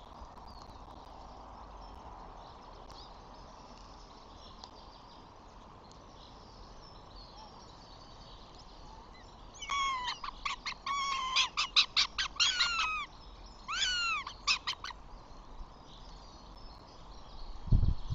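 A bird calls in two bursts of rapid repeated notes, each note bending down in pitch, starting about halfway through, over a faint background of wind and distant bird chirps. A low thump comes near the end.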